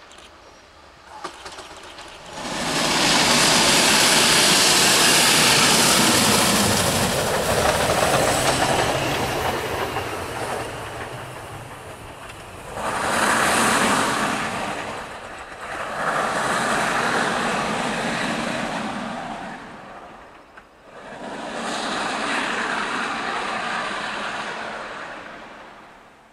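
Steam-hauled train passing below. A loud rush of train noise comes in about two seconds in and slowly fades, then swells up three more times before dying away near the end.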